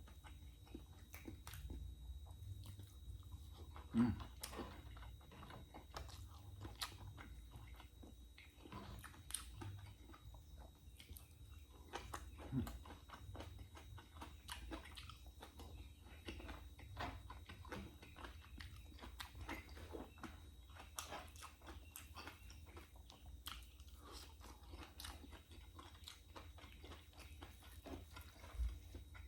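A person chewing and biting food close to the microphone: scattered soft crunches and wet mouth clicks over a faint low hum, with a louder knock about four seconds in. The food is fried tinapa (smoked fish), tortang talong (eggplant omelette) and crispy fried dilis (anchovies) with rice.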